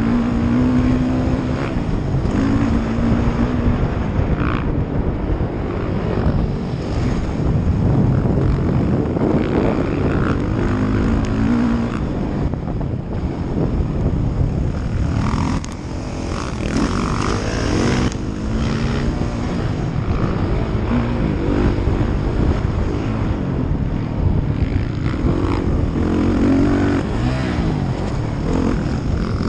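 2016 Suzuki RM-Z450's single-cylinder four-stroke engine heard close up from the rider's helmet, revving up and falling back again and again as the throttle is worked around the motocross track.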